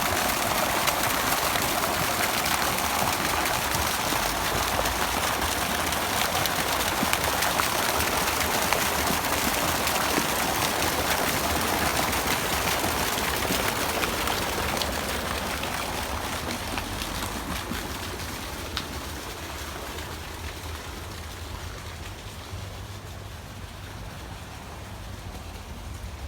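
Water running and splashing steadily, like a fountain or water feature, fading gradually over the second half.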